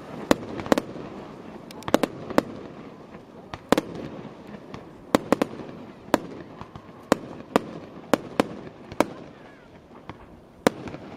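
Aerial fireworks bursting: a string of about fifteen sharp bangs at uneven intervals, one or two a second, with a low murmur of crowd voices between them.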